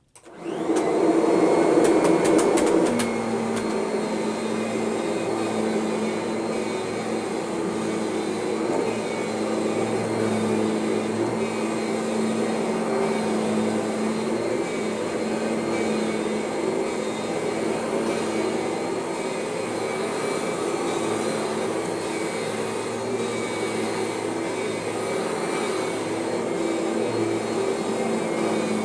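Kirby vacuum cleaner switched on, surging for about three seconds and then running steadily with a constant hum. The normal transmission whine is mostly gone.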